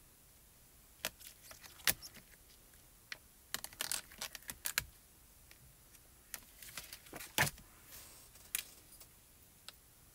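Scattered light plastic clicks and taps of clear photopolymer stamps being picked from their acetate carrier sheet and set down on a stamping platform. The clicks come irregularly, some in quick clusters, with a few sharper ones standing out.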